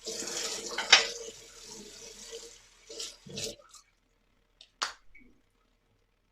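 Tap water running into a sink, which stops about two and a half seconds in. A few short splashes or knocks follow.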